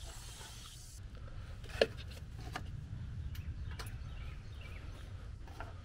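Handling noise from work on the wiring in an AC condenser's electrical compartment: a low rumble with scattered light clicks and one sharper click about two seconds in.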